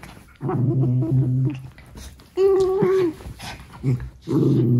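Shiba Inu dogs play-fighting: a low wavering growl, then a short higher-pitched whine, then another growl near the end.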